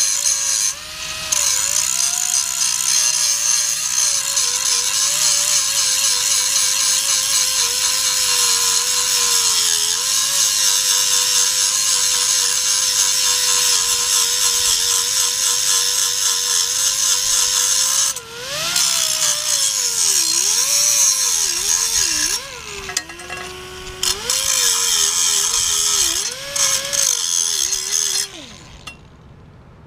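Angle grinder sharpening the cutting edge of a steel lawn mower blade: a loud, rough grinding noise over the motor's whine, whose pitch sags and recovers as the wheel is pressed on. It eases off a few times in the second half and stops near the end.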